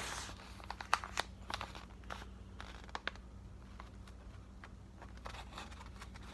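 Packaging crinkling and rustling with scattered sharp clicks as nunchucks are unwrapped, busiest in the first three seconds and sparser after.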